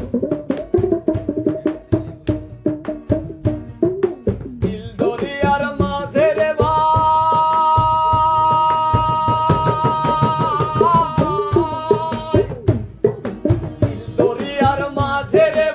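Hand-drum rhythm played alone for about five seconds, then a male voice joins and holds one long note over the drumming for several seconds; near the end the drumming comes forward again and the singing resumes. Bengali folk song with hand-drum accompaniment.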